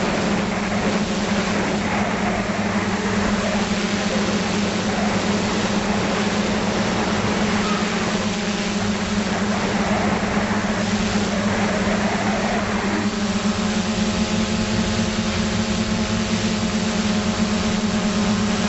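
Multirotor drone's motors and propellers, heard through its onboard camera: a steady hum. About two thirds of the way through, a set of higher tones joins in as the motor speeds shift.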